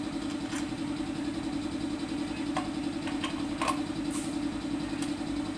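A steady low machine hum, with a handful of short, sharp clicks and taps spread about a second apart as the e-bike hub motor's cable is pulled through its axle.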